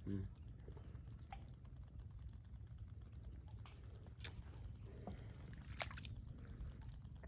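Faint, sparse clicks and handling noise as a live mud crab is held and bound with string by hand, over a low steady rumble; the sharpest clicks come about four and six seconds in.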